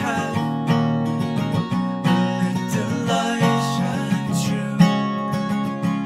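Background music led by a strummed acoustic guitar, with a steady rhythm of strokes.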